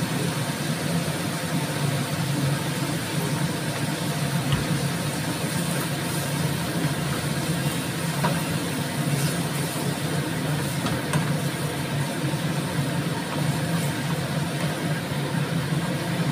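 Vegetables being stir-fried in a pan on a gas hob: a steady low hum with an even hiss over it, and a few faint clicks of the wooden spatula against the pan.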